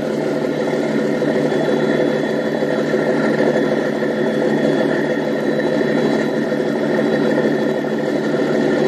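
Tugboat's diesel engine running steadily under heavy load, holding the boat and its towed barge against a strong ebb current. It is working hard, with black exhaust smoke, and the boat is only just starting to hold its ground.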